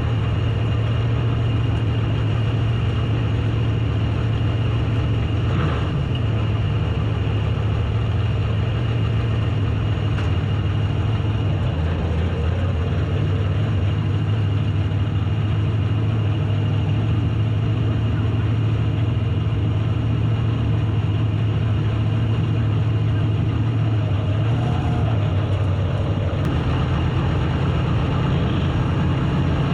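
Race car engine running steadily under load, its low drone shifting slightly in pitch a few times.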